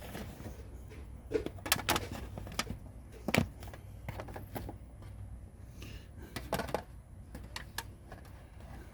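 Someone biting into and chewing a stuffed bell pepper, with scattered short crunches and wet mouth clicks, the loudest a little over three seconds in.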